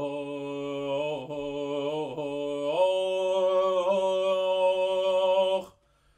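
Solo male voice singing a Persian tasnif in the Homayoun mode, unaccompanied: long held notes joined by sliding ornaments, stepping up in pitch about three seconds in, then breaking off abruptly near the end.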